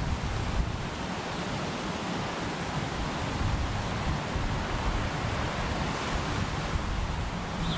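Wind buffeting the microphone outdoors: a steady rushing noise with uneven low rumbling gusts.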